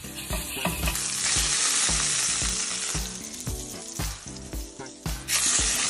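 Salmon burger patty sizzling in hot oil in a skillet, the sizzle swelling loud about a second in and again near the end. A faint, even beat of background music runs underneath.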